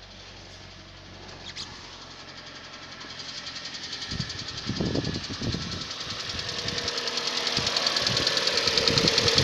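Hyundai ix35's G4NA 2.0-litre four-cylinder engine running after a cold start, with a fast, even metallic ticking that grows steadily louder. It is the timing chain knocking while the hydraulic chain tensioner is slack. A few dull thumps come in the middle.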